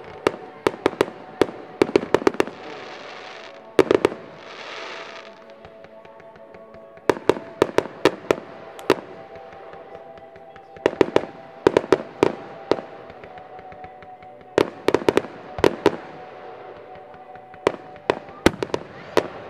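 Fireworks display: aerial shells bursting in volleys of quick, sharp bangs, a cluster every few seconds. There are two brief hissing bursts about three and five seconds in, and a faint steady tone runs underneath.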